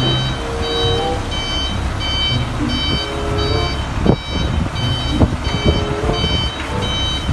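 Large diesel box truck's engine running while its reversing alarm beeps repeatedly, about twice a second, with a few sharp knocks about four to six seconds in.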